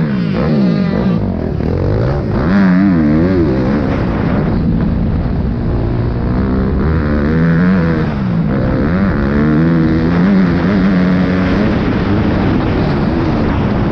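Motocross dirt bike engine heard from on the bike, revving up and down over and over as the rider opens and closes the throttle and shifts around the track.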